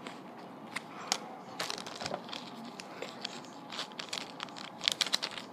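Crinkling of a small plastic bag and the handling of a small cardboard box as a set of fingerboard trucks is unpacked, with scattered light clicks and crackles.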